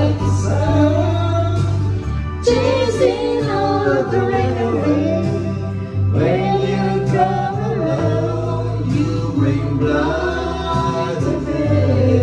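Karaoke singing: a man and a woman sing into microphones over a backing track with a steady bass line.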